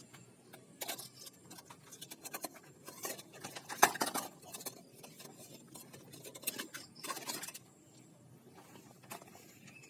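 Plastic toys being handled: scattered clicks, taps and scraping rattles, with a sharper click about four seconds in.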